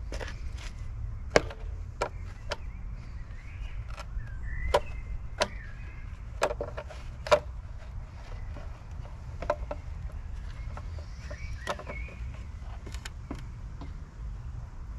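Horn cover of a Vespa PX being worked loose by hand and pulled off the front of the scooter: a string of sharp, irregular clicks and knocks, the loudest about a second and a half in and again past seven seconds.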